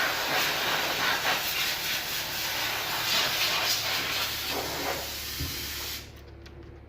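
A loud, steady hiss with a low hum beneath it. The hiss cuts off suddenly about six seconds in.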